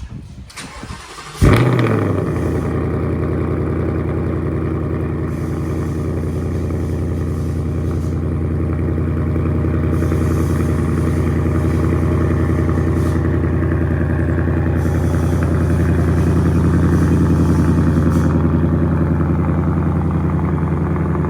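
Ford Mustang GT's 5.0 Coyote V8 cold-starting through its stock headers, H pipe and factory active valve exhaust: it catches about a second and a half in with a loud flare, then settles into a steady, high cold-start idle.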